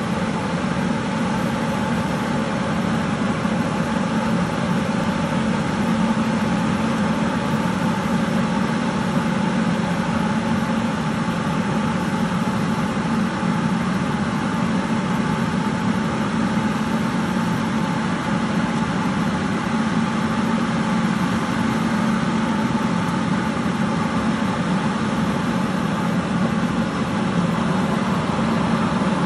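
Tractor-drawn airblast orchard sprayer running while spraying: its large axial fan blows a steady rush of air and mist together with the tractor's engine noise.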